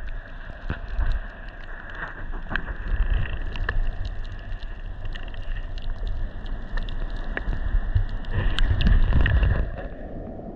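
Muffled low rumbling and sloshing of water around a camera held underwater while wading in shallow sea water, with scattered small clicks and ticks. The rumble swells louder around nine seconds in.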